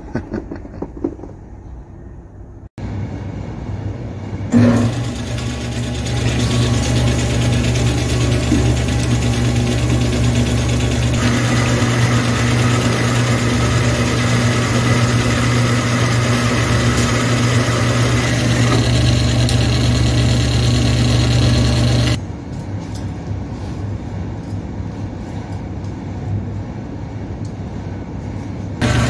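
Horizontal metal-cutting bandsaw running steadily with its coolant flowing, the blade cutting through steel pipe with a steady motor hum. The saw gets quieter about two thirds of the way through and comes back loud just before the end. A short stretch of quieter outdoor noise comes before the saw starts.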